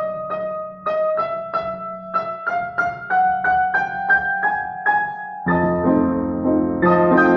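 Upright piano played four-hands: a line of single notes, about three a second, climbing step by step. At about five and a half seconds fuller chords with bass notes come in and it gets louder.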